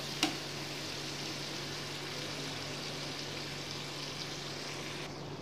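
Thick spice paste with dried salted hilsa sizzling and bubbling steadily in a pan as it is fried down with a little water, with a single click just after the start.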